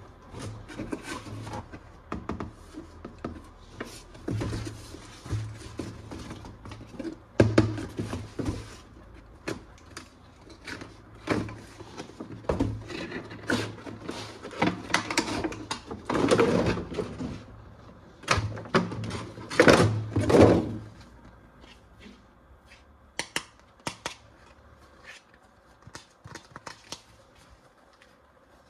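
Plastic toys and packaging being handled: irregular clicks, knocks and rustling, with two louder bursts of handling past the middle, then only scattered light clicks near the end.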